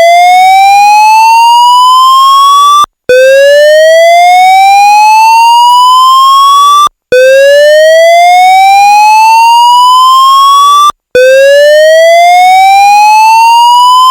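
AS2220 fire-alarm evacuation tone: a loud electronic whoop that climbs steadily in pitch and then cuts off abruptly. It repeats about every four seconds, with one sweep already under way and three full sweeps. It is the evacuation signal telling occupants to leave the building.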